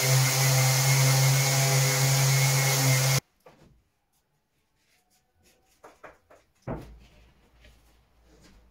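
Flex electric orbital sander running steadily with its dust-extraction hose attached, cutting off suddenly about three seconds in. Then light handling clicks and a board knocking against the workbench a little past halfway.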